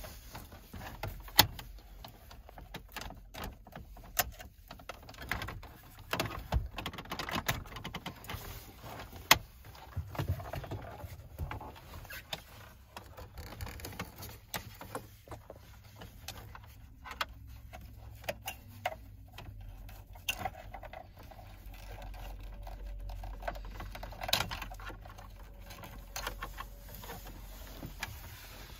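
Scattered clicks, taps and rattles at irregular times as the factory VW radio's metal case is handled and the wiring plugs and cables are pulled from its back.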